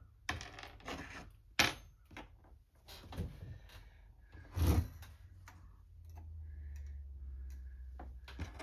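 Clinks, taps and rubbing of small carburetor parts being handled and fitted on a workbench. A sharp metallic clink comes about one and a half seconds in and a heavier knock near five seconds, and a low steady hum sets in about six seconds in.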